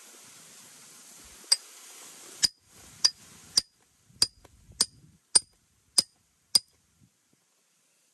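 A wooden stick striking the back of a steel knife blade to drive it through a fish on a wooden chopping board: nine sharp knocks with a bright metallic ring, about one every 0.6 s.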